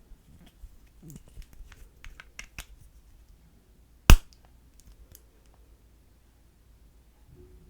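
Slime being worked by hand, giving a run of small clicks and pops over the first few seconds, then one loud sharp snap about four seconds in.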